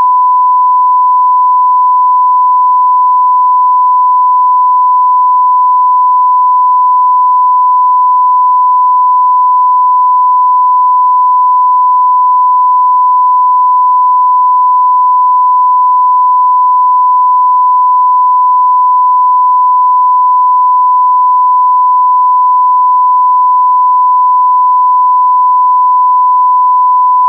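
A loud, unbroken electronic beep tone held at one steady pitch, a pure tone with nothing else sounding.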